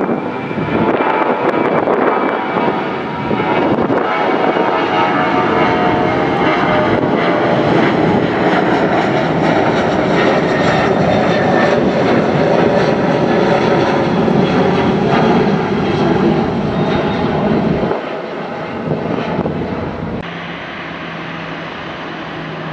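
Jet airliner engines at takeoff power as the aircraft climbs out, a loud steady rush with whining tones over it. About three-quarters of the way through it drops abruptly to a quieter, steady jet engine hum with a low tone.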